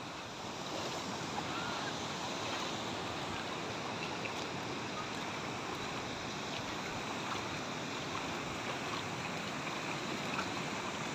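Steady rush of river water spilling over a low concrete check dam and churning into foam below it.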